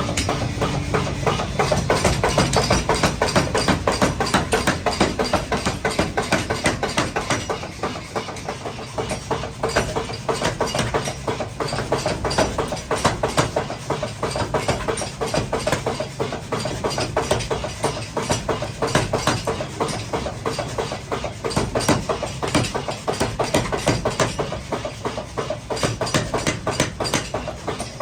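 Rapid, steady hammering on hot metal in a forge, several blows a second, with machinery running under it.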